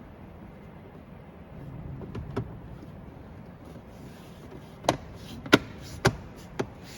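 Plastic side trim panel of a Jeep Wrangler JKU being pressed back into place by hand, its clips seating. There are two soft knocks about two seconds in, then four sharp knocks in the second half.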